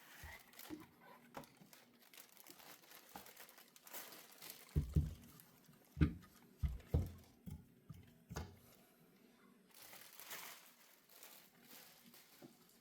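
Hands handling plastic packaging or film, which crinkles and rustles faintly, with several dull thumps from parts being set down or knocked in the middle.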